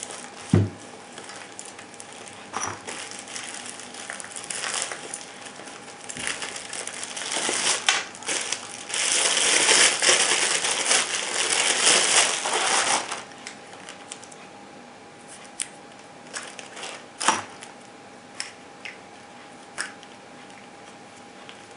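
Unboxing packaging being handled: crinkling and rustling, densest and loudest from about eight to thirteen seconds in, with scattered clicks and taps.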